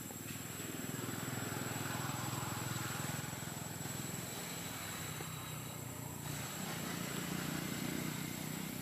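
A low, steady mechanical hum, swelling a little near the end.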